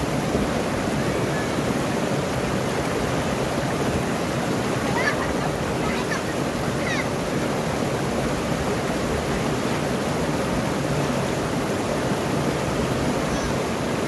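River rapids rushing over a rocky ledge: a steady, even sound of churning white water.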